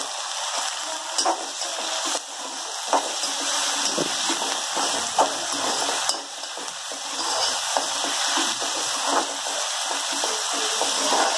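Chopped onion, green chillies and potato sizzling in hot oil in a kadhai, with a slotted steel spoon scraping and tapping against the pan as it is stirred. A steady sizzling hiss runs under scattered sharp clicks from the spoon.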